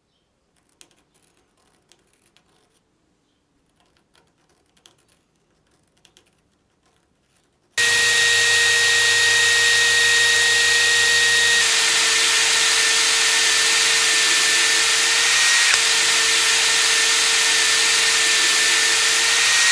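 A few faint handling clicks, then about eight seconds in a cordless drill starts abruptly and runs at a steady high speed with a constant whine, boring tuner holes through a wooden guitar headstock. It cuts off suddenly near the end.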